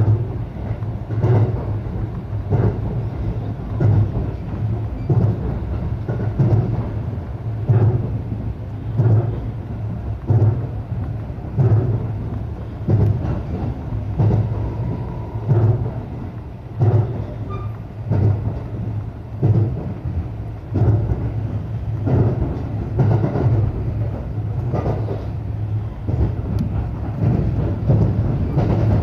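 Local train running at steady speed, heard from on board: a steady low rumble with a regular clack of the wheels over rail joints about every second and a quarter.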